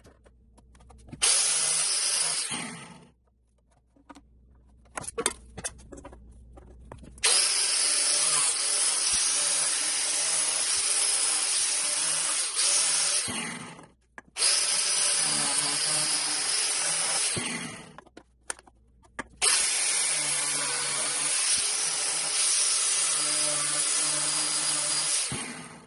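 Corded angle grinder with a cut-off wheel cutting into PVC pipe. It runs in four bursts of a few seconds each, stopping briefly between them.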